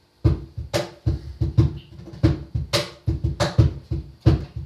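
Acoustic guitar strummed hard in a steady rhythm, each stroke with a deep thump, opening a hymn accompaniment. It starts abruptly a moment in.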